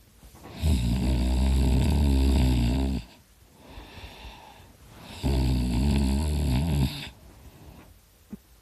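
A sleeping person snoring loudly: two long snores, the first about two and a half seconds and the second about a second and a half, with quiet breathing between.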